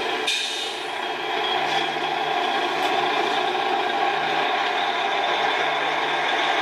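DAF XF heavy-haulage lorry running at low speed with road traffic, heard as playback through small laptop speakers.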